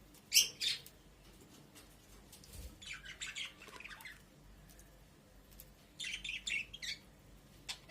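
Budgerigars calling: two sharp squawks about half a second in, then bursts of high chirping chatter at about three seconds and again at about six.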